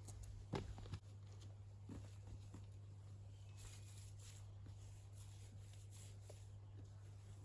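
Near silence with a steady low hum, broken by two soft knocks about half a second and one second in, and a few faint ticks after.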